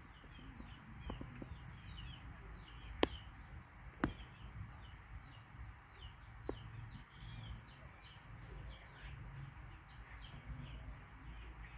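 Small birds chirping with many short, high, quick calls, over a low background rumble. Two sharp clicks, about three and four seconds in, are the loudest sounds.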